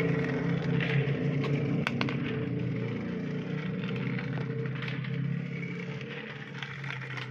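A steady low hum under faint clicks and light handling sounds of plastic toys.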